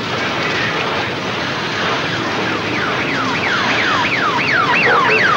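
Electronic siren sounding in rapid falling whoops, about three a second, beginning about two and a half seconds in over a steady hiss.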